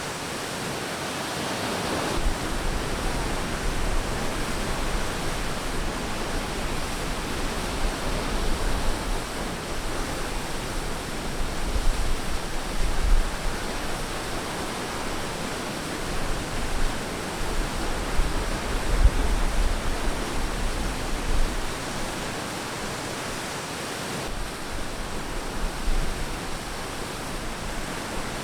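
Ocean surf washing onto a beach: a continuous rushing of waves, with a low rumble swelling and several louder surges about 12, 13 and 19 seconds in.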